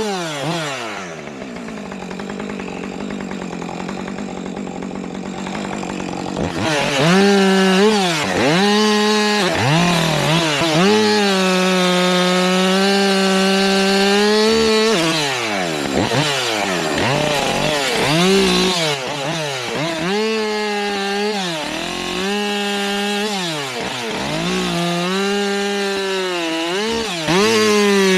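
Two-stroke Husqvarna 545 chainsaw idling for the first six seconds or so, then run up to full throttle bucking the felled trunk. Its pitch sags and recovers several times as the throttle is let off and squeezed again between cuts.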